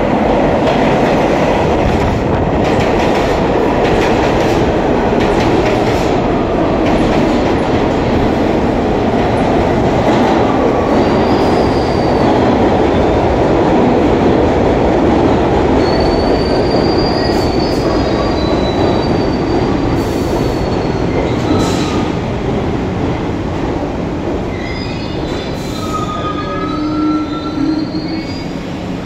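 R62 subway train pulling into an underground station: a loud, steady rumble of steel wheels on rail. Thin, high squeals come and go from about a third of the way in, and the rumble eases toward the end as the train slows to a stop.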